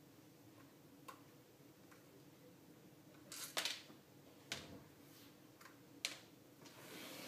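Scattered small clicks and knocks of a handheld antenna analyzer's plastic case and a small screwdriver being handled as the unit is taken apart, with the loudest cluster of clicks about three and a half seconds in and a soft rustle near the end.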